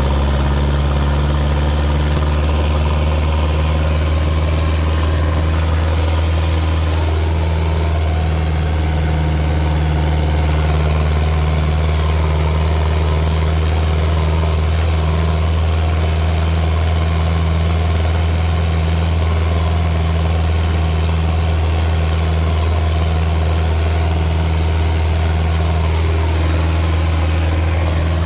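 Fiat New Holland L85 tractor's turbocharged diesel engine idling steadily, with its turbo whistling.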